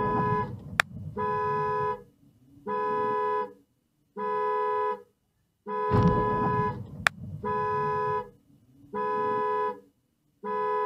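A car horn blown in a steady series of long honks, each just under a second, about every one and a half seconds. Two sharp clicks cut in along the way.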